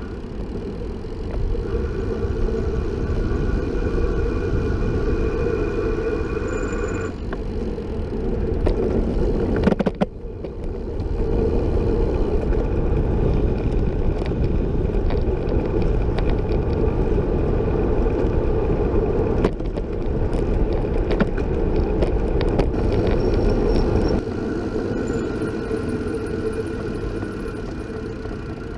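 Wind rushing over the microphone and tyre noise from a recumbent trike rolling along a road at speed, with a steady thin whine above it and scattered short knocks from bumps in the road.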